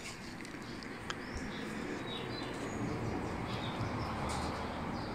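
Flock of white domestic pigeons cooing, with short, high bird chirps scattered throughout and a brief flurry of wingbeats about four seconds in.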